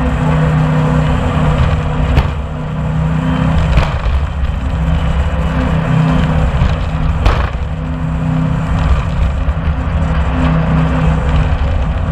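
Jet boat's engine running at speed, a steady low drone under a constant rush of wind and water, with a few sharp knocks about two, four and seven seconds in.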